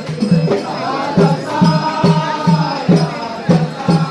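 Music: a steady drum beat, about two to three strokes a second, with voices chanting over it.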